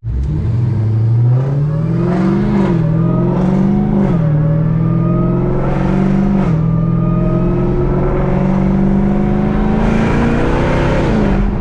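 Car engine accelerating hard through the gears: its note climbs and drops back at each upshift, four quick shifts in a row.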